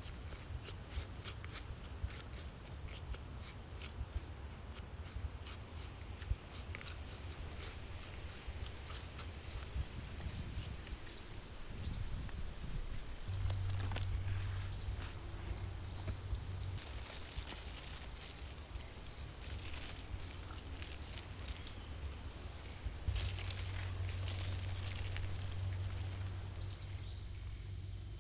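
Forest ambience: a bird repeating a short, high chirp about once a second, over fine clicking in the first half and a low rumble that swells twice.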